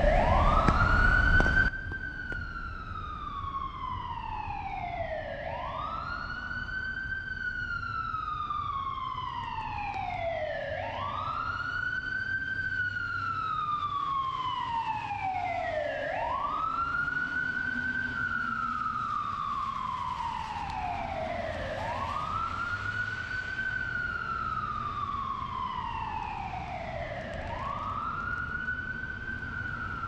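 Emergency vehicle siren wailing at steady strength, each cycle rising quickly and falling slowly, repeating about every five and a half seconds over a faint street hiss. A loud rushing noise at the start cuts off suddenly about two seconds in.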